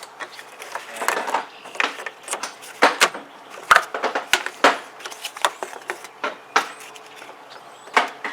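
Metal hand tools, a wrench and sockets, clinking and clunking as they are picked up and gathered. The knocks are sharp, irregular and come in a loose series.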